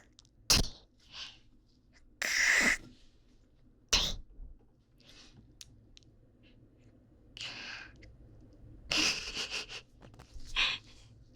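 A person making close-miked hawk-and-spit mouth noises ('kak-tweh'): a string of short, harsh throat-and-mouth bursts, the longest and loudest about two seconds in, with fainter ones in between.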